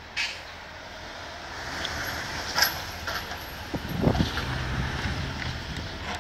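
Outdoor town ambience heard from above, with a motor vehicle running on the street below, loudest from about four seconds in, and a few sharp knocks.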